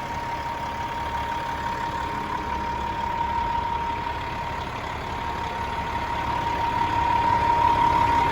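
Caterpillar 3406E diesel in a Kenworth W900L idling steadily, with a steady high tone over the engine noise, growing louder toward the end.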